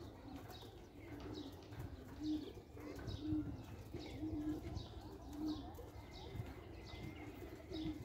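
Domestic pigeons cooing on a loft roof: a run of low coos about a second apart. Another bird's short, high, falling chirps repeat over the top.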